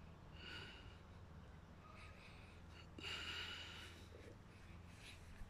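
Near quiet: a low steady hum with a few short, faint breath-like puffs close to the microphone, the clearest about three seconds in.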